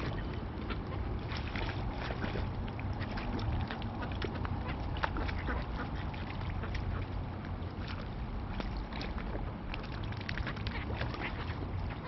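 Mallard ducks quacking among other waterbirds, many short calls coming close together over a steady low rumble.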